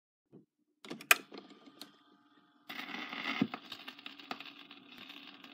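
Record player starting up: a few clicks and a sharp snap as its controls are worked, then from about two and a half seconds in a steady hum and hiss as the 45 rpm vinyl single turns on the platter, with a soft thump about three seconds in as the needle drops onto the record.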